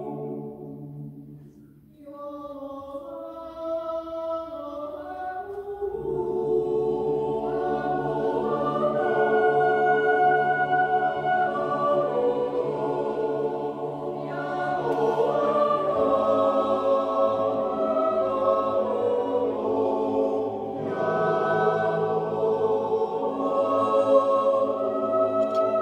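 Swiss yodel club choir singing in sustained, many-voiced chords. A phrase dies away, a few voices start again about two seconds in, and the full choir joins about four seconds later.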